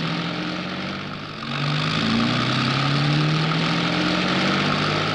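City bus engine running as the bus drives past. The engine note steps up about a second and a half in and climbs slowly as the bus gathers speed, over a steady road rumble.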